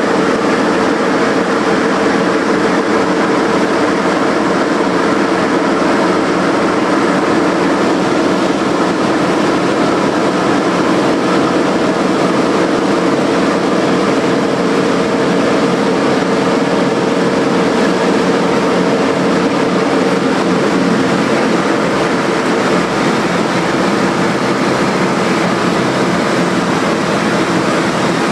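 Vintage bomber's piston engines running loud and steady at high power through the takeoff roll and climb, heard from inside the fuselage at the open waist gun window.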